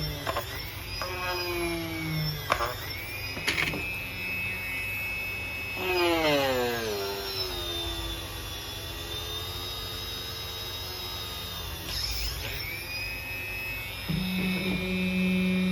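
Homemade cordless drill's brushless motor whining as it is run up and let off in turn. Its pitch rises as it speeds up and falls as it slows, with a long spin-down about six seconds in.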